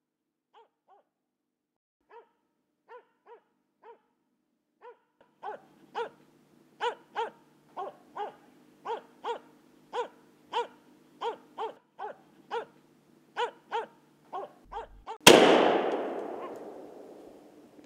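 Finnish Spitz barking at treed game in a steady run of sharp barks, faint at first and louder and quicker from about five seconds in, about two to three barks a second. Near the end a single gunshot cracks out and dies away over a couple of seconds.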